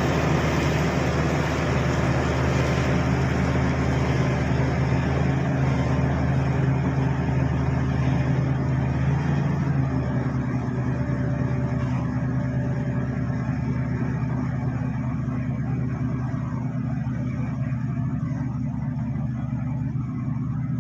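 Large bulldozer's diesel engine running steadily with a deep drone. About halfway through, it eases off and turns a little quieter and duller.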